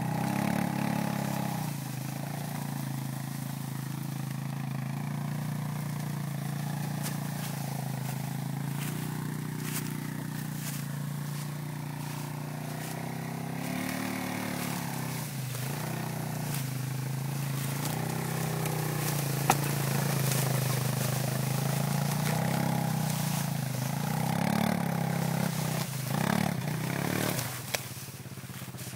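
Small vehicle engine running at low speed, its revs rising and falling a few times, with light crackles over it.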